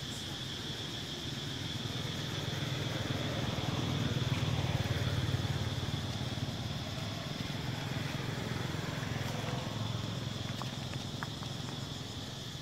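A passing motor vehicle's low engine rumble swells to a peak a few seconds in and slowly fades, over a steady high-pitched hum.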